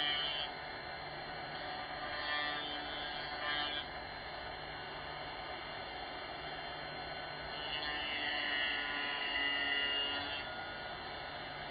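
Small high-speed electric motor of a dental-lab tool whirring steadily while a bruxism splint is being made. It gets louder and shriller twice, about two seconds in and again about eight seconds in, as if the tool is working the material.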